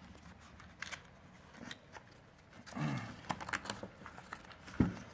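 Stiff strap being threaded and pulled through a rucksack frame's bracket: faint handling and scraping with scattered small clicks, and a single knock near the end.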